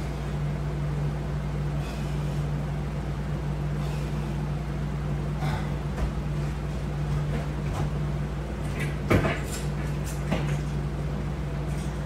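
Resistance-band exercise equipment knocking and clattering lightly as it is worked and handled: scattered short knocks, the loudest about nine seconds in and another about a second later, over a steady low hum.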